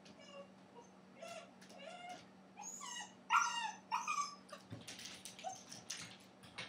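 Dachshund puppy whining and yelping in a string of short high cries that rise and fall in pitch, the loudest about three and a half seconds in. Near the end comes a run of quick clicks and scratches as it scrabbles up the baby gate.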